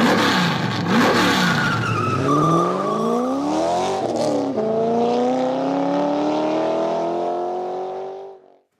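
Car engine revving: a few quick rises and falls in pitch, a climb that drops away about four and a half seconds in, then one long, slowly rising rev that fades out near the end.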